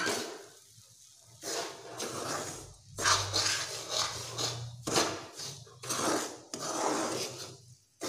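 Metal spatula scraping and stirring a dry mix of grated coconut and semolina around a kadai, in repeated rasping strokes about a second apart, while the mix is dry-roasted for laddu.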